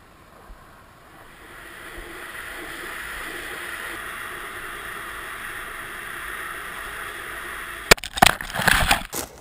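Air rushing past a falling balloon payload's camera, swelling over the first two seconds and then holding steady. About eight seconds in, a sharp loud impact and a second of jumbled knocking and scraping as the payload crash-lands on the ground.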